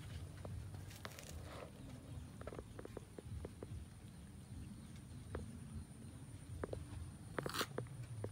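A crowd of cats eating rice with fish from a metal tray: scattered small wet clicks of chewing and licking, with a louder, sharper noise about seven and a half seconds in.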